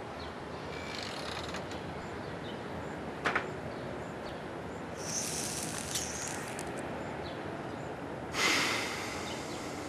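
Quiet outdoor background hiss, with a sharp click about three seconds in, a short burst of high hiss around five seconds, and a louder burst of hiss near the end that fades quickly.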